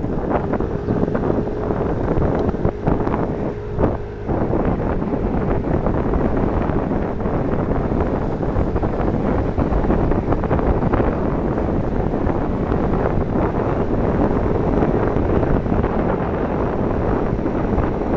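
Wind rushing over the microphone of a moving Yamaha Tricity scooter, over the scooter's engine and road noise, with a steady engine hum.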